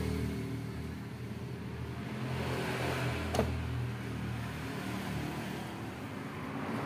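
Steady low engine-like hum in the background, with a single sharp metallic click about three and a half seconds in as the scooter's gearbox cover is handled against the casing.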